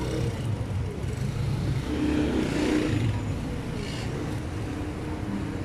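Street traffic: a motor vehicle's engine running close by, swelling and passing about two seconds in, over a steady low rumble.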